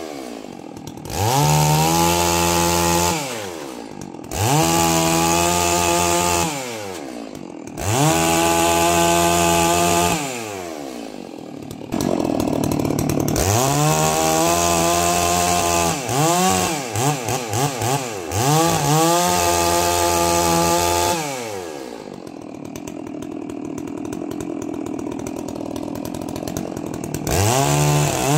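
Holzfforma G660 two-stroke chainsaw being broken in, revving up to full throttle for a couple of seconds at a time as it cuts through thin logs and dropping back between cuts. About two-thirds through comes a string of quick throttle blips, then several seconds of idle before it revs up again at the end.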